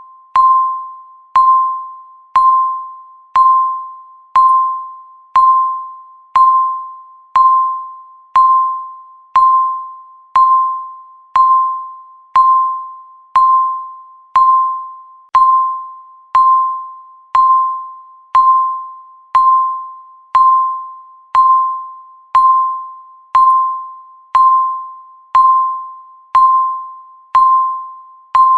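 Countdown timer tick sound: a short, pitched, bell-like ding about once a second, each fading quickly, marking off the seconds.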